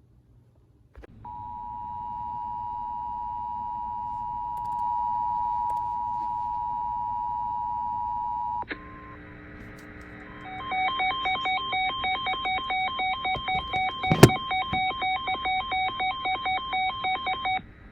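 Emergency Alert System attention signal: a steady two-note alarm tone held for about seven seconds, the lead-in to a severe thunderstorm warning. A few seconds later a second alert tone plays, a fast warbling run of alternating beeps at about three a second, with one sharp click partway through.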